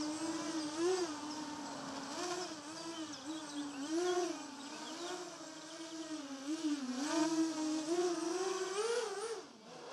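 Lumenier QAV-R racing quadcopter hovering low, its motors and DAL 5045 bullnose propellers giving a buzzing whine whose pitch wavers up and down as the throttle is corrected. The pitch climbs near the end, then drops away. The propellers make an odd droning that the pilot cannot place.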